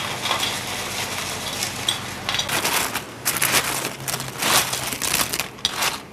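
Crisp double-fried potato strips being handled and stirred, giving irregular crunching and rustling knocks that grow busier about halfway through, over a steady hiss.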